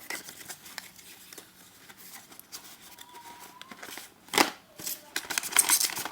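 Packaging being handled: rustling and clicking, with a sharp knock about four seconds in and a flurry of louder clicks and rustles near the end.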